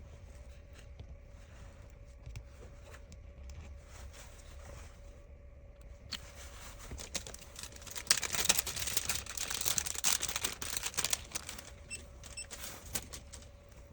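Thin plastic film crinkling and being peeled, as when the backing comes off fresh adhesive for a phone's back glass. It starts about six seconds in, is loudest for a few seconds in the middle, then thins out into scattered clicks.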